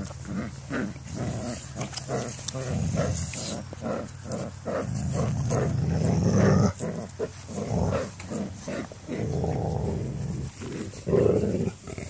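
Six-week-old Labrador retriever puppies growling as they play-fight, a continuous run of short, low growls.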